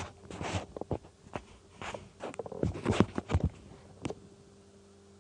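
Irregular run of sharp clicks and taps from a computer mouse and desk being handled close to the microphone, stopping about four seconds in, over a faint steady electrical hum.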